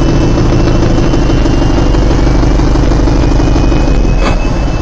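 Piston aircraft engine running steadily and loud with a rattle. Its main tone drops away near the end, followed by one sharp knock, in a reconstruction of the C-47's engine failing.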